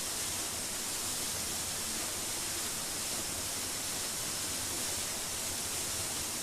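Steady rush of a waterfall, water pouring from the rocks in an even, unbroken hiss.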